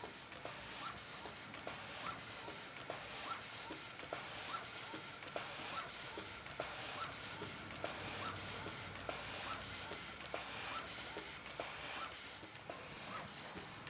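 Taylor Twin steam boat engine running slowly, with a regular knock about one and a half times a second from its bearings, which are not yet adjusted. Steam hisses throughout from the loose piston rod glands leaking.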